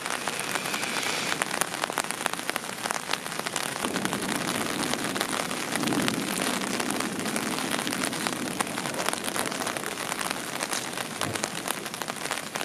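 Rain falling onto standing floodwater: a steady, dense patter of drops splashing on the water's surface, with a low rumble swelling for a few seconds in the middle.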